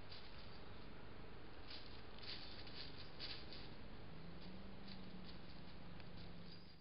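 Steady hiss from a trail camera's microphone, with a cluster of faint crackling rustles in dry leaf litter about two to three and a half seconds in, from pheasants moving on the woodland floor. A faint low hum sets in about four seconds in.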